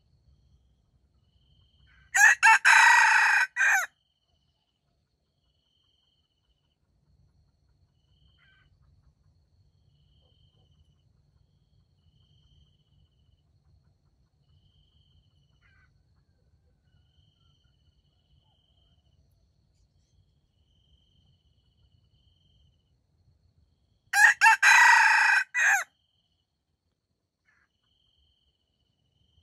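Red junglefowl rooster crowing twice, each crow about two seconds long, the second about twenty seconds after the first.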